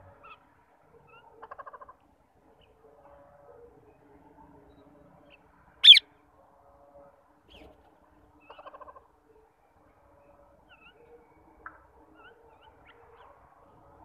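A rose-ringed parakeet gives a single short, shrill screech about six seconds in, by far the loudest sound. Faint scattered chirps and two brief rattling chatters come from the birds around it.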